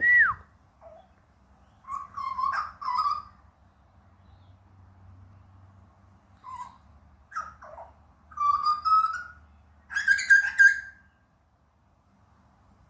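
Butcherbird calling: a sharp falling whistle at the start, then several short phrases of whistled notes mixed with rougher, scratchier notes, the loudest phrase about ten seconds in.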